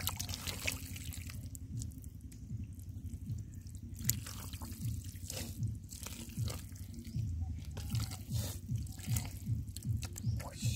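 Shallow water in a flooded rice field splashing and dripping, with small scattered splashes over a run of soft low pulses about two a second.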